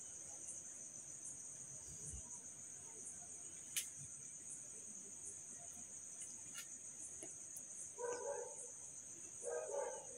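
Faint, steady, high-pitched chirring of crickets, with a single sharp click about four seconds in and two brief soft sounds near the end.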